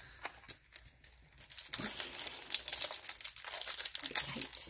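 Trading card pack wrapper crinkling as it is handled and opened; a few faint clicks at first, then dense crinkling from about two seconds in.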